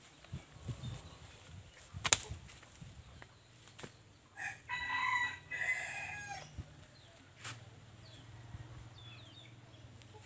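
A rooster crows once, about four and a half seconds in, a single call of about two seconds. A sharp knock sounds about two seconds in.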